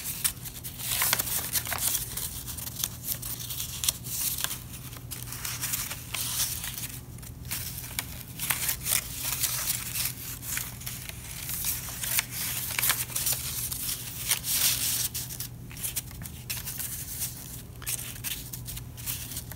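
Construction paper rustling and crinkling as paper strips are threaded over and under the slits of a paper loom and pushed into place, in irregular rustles and scrapes.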